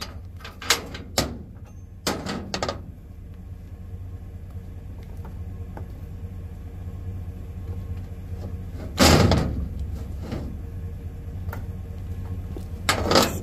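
A vehicle door shuts with a loud thud about nine seconds in, over a steady low hum. A few short clicks and rustles come in the first three seconds.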